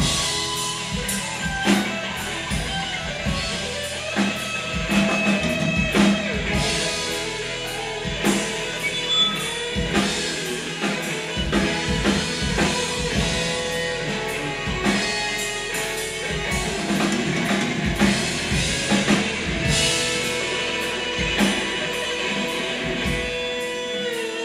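Live rock band playing an instrumental passage: a single-cutaway electric guitar over a drum kit, with a second guitar, steady and loud without vocals.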